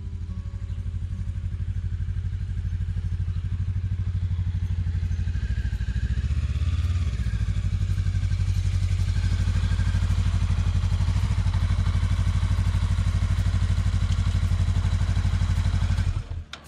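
Honda Rebel 500's parallel-twin engine running at low speed as the motorcycle is ridden slowly in, growing louder over the first couple of seconds and then shut off suddenly near the end.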